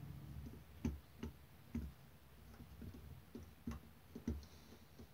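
Faint, irregular clicks and taps of small metal parts as the chassis and valve gear of a model live steam locomotive are handled and fitted.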